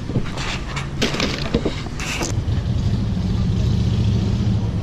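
A motor engine running nearby, its low hum swelling about halfway through as it passes close, with a few short knocks and clatters in the first half.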